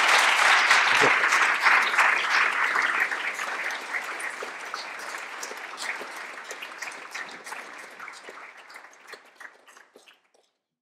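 Audience applauding. The clapping is dense at first, then thins into scattered single claps and fades away near the end.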